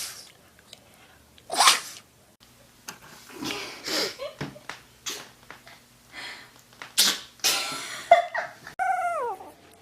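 A dog sneezing several times, in short sharp bursts, then a brief whine that falls in pitch near the end.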